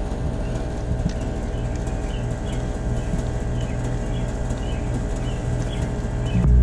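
Steady low mechanical hum, like a motor or engine running, with faint, short, high chirps repeating over it.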